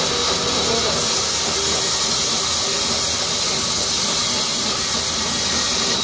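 Large band saw cutting lengthwise through a mahogany log: a steady, loud hiss of the blade in the wood that grows stronger about a second in as the cut takes hold.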